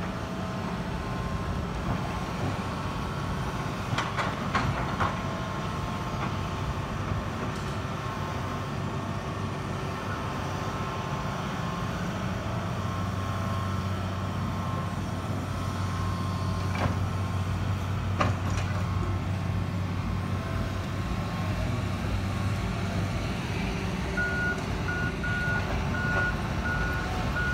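Diesel engine of heavy construction machinery running steadily, growing fuller about halfway through, with a few sharp knocks. Near the end a reversing alarm beeps about twice a second.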